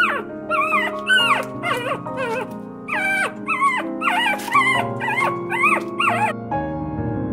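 Shar Pei puppies whining and yipping in a quick run of short, high, rising-and-falling cries, about a dozen of them, that stop about six and a half seconds in.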